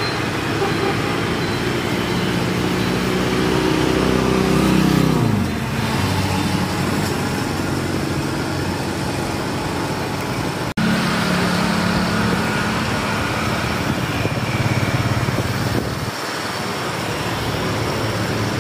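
A motor vehicle engine running steadily, its pitch falling about five seconds in. After a sudden break about eleven seconds in, a similar engine hum resumes.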